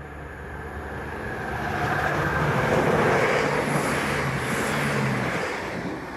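Multi-carriage passenger train passing over a level crossing at speed: a rush of wheel and rail noise that swells, peaks about three seconds in and fades away, over a steady low engine hum.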